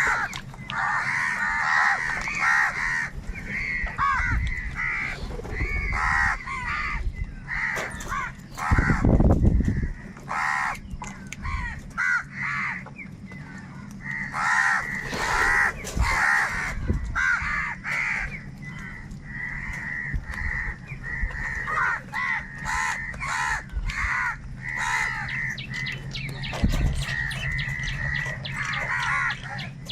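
A large flock of crows cawing harshly and continuously, many calls overlapping. A brief low rumble comes about nine seconds in.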